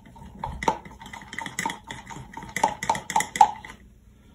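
Long paintbrush stirring glue and water in a plastic Mod Podge jar, its handle clicking and knocking quickly and irregularly against the jar's sides. The stirring stops a little before the end.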